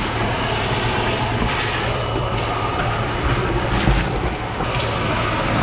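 Shop vacuum running steadily, its hose sucking up debris from the floor of a bilge battery compartment.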